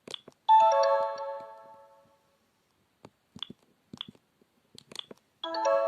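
Sony Ericsson K750i mobile phone playing a built-in sound effect: a bright chiming tone of several notes at once that starts sharply and fades out over about a second and a half. It sounds twice, about five seconds apart, with short clicks in between.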